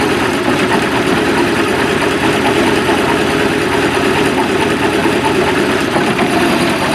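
Carbureted MerCruiser stern-drive engine idling steadily out of the water on flush muffs, heard up close through the open engine hatch.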